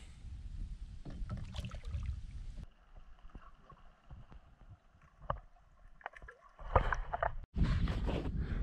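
Water sloshing and splashing around a kayak. It turns muffled and gurgling while the microphone is under the surface, and louder splashes come near the end.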